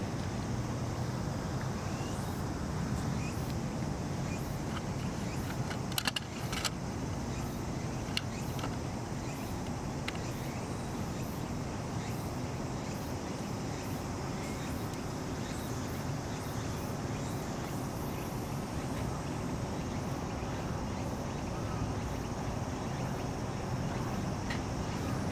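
Steady outdoor background noise, with wind on the microphone and a low rumble like distant traffic. A brief cluster of sharp clicks comes about six seconds in.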